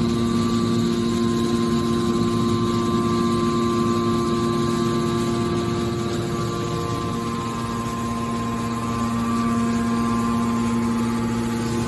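Hydraulic baling press running, its pump motor giving a steady hum with a few fixed tones over mechanical noise; the hum eases slightly about seven seconds in, then steadies again.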